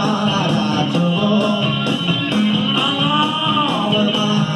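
Rock band recording with electric guitar, bass and a steady drum beat, played from a cassette on a Sanyo stereo cassette deck through a Marantz 2250 receiver and its loudspeakers.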